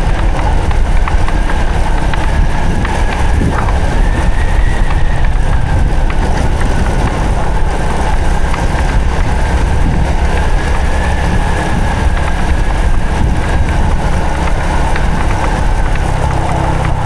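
Honda Supra X 125 FI's single-cylinder four-stroke engine running steadily while riding. Its sound is buried in a loud, dense low rumble, with a faint whine that drifts slightly up and down.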